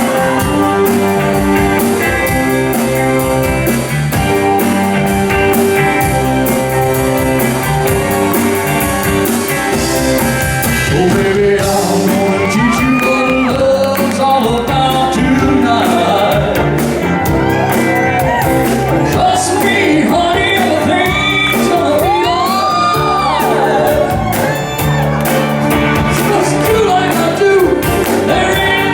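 A live band playing, with held chords and steady cymbal strokes. From about twelve seconds in, a voice sings and shouts over the band, its pitch swooping up and down.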